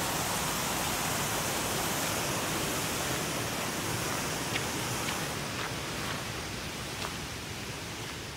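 Steady rushing hiss of flowing water, whose upper hiss thins out over the last few seconds. A few faint ticks sound over it partway through.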